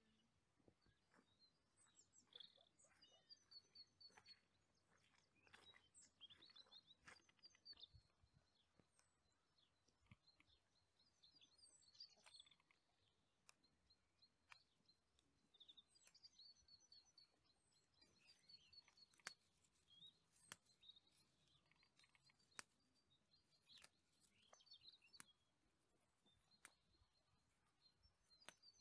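Faint birdsong: small birds chirping and trilling again and again, high-pitched, with a few sharp clicks scattered among the calls.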